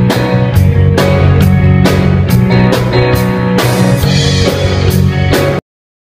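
Outro music with a steady beat, cutting off suddenly near the end.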